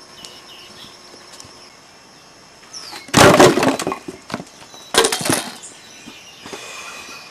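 Firewood dropped onto a pile of logs and branches: two loud crashes of wood on wood, about three seconds in and again two seconds later. Steady insect chirping runs underneath.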